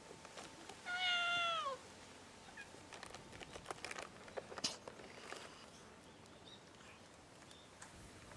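A stray cat meows once, about a second in: one long meow that falls in pitch at the end. It is followed by scattered small clicks and crunches of cats eating food off the step.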